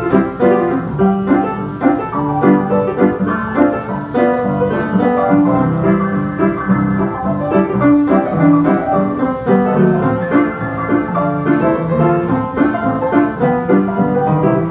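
Piano music: a continuous run of notes with several notes sounding together.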